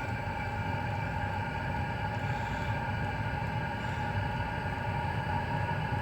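A 5 kW Chinese diesel air heater running during start-up: its blower fan and motor hum steadily with a constant whine.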